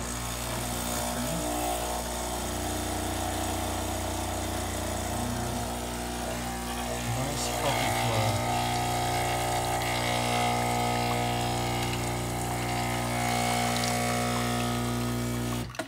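Breville Oracle espresso machine's pump running steadily as it forces water through freshly ground coffee, a steady hum that shifts slightly in pitch a few times and cuts off sharply near the end as the shot finishes. The machine is brewing against the coffee's back pressure, a sign that the cleaned brew solenoid valve is working again.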